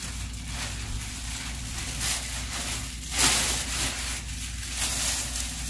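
Large thin plastic wall mural crinkling and rustling as it is unfolded and held up, in several swells, the loudest about three seconds in, over a steady low hum.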